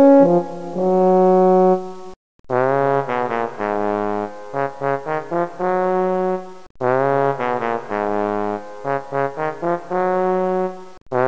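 Background music: a brass tune of short, bouncy notes whose phrase loops about every four seconds, with brief breaks about two and seven seconds in.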